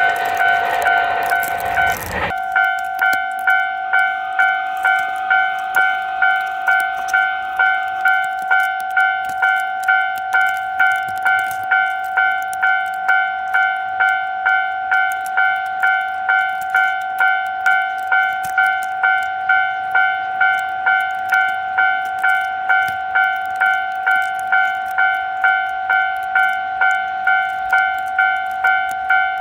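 Japanese railway level-crossing alarm ringing its electronic two-tone ding evenly, a bit under two strikes a second, warning of an approaching train. For the first two seconds a passing train's rumble and wheel clatter sound over it, then stop abruptly.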